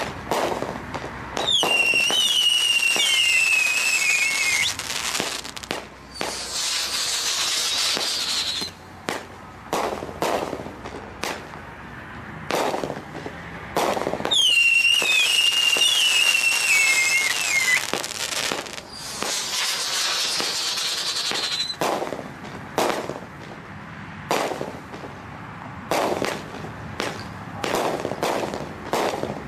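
A 200-gram 'Superman' fireworks cake firing a string of sharp shots and bursts. Twice a long whistle falls in pitch over about three seconds, each followed by a few seconds of steady hissing. The reports come quicker near the end.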